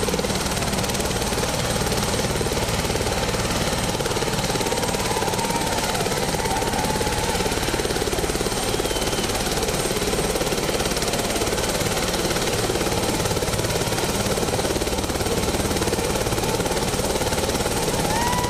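Light helicopter running on the ground with its rotor turning: a loud, steady engine and rotor noise with a fast low pulsing.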